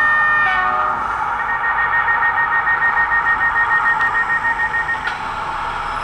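Sound-fitted 00 gauge model diesel multiple unit running, its loudspeaker giving a steady diesel engine sound. A short falling run of tones comes in the first second, then rapid electronic beeping from about a second and a half in until about five seconds.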